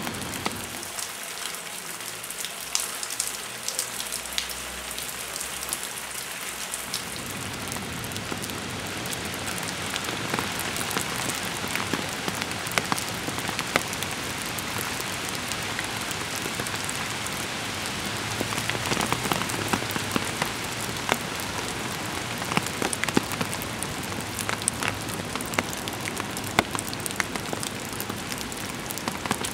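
Steady rain pattering on a surface, with many separate drops ticking through it; the sound grows fuller about seven seconds in.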